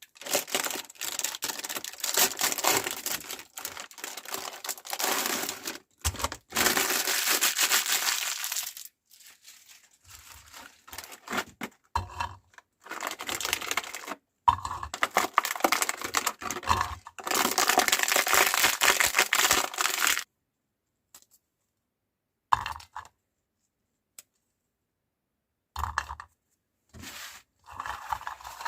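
Cookies crunching and cracking as a meat grinder crushes them: dense crackling bursts of several seconds each, broken by sudden silences, with shorter bursts near the end.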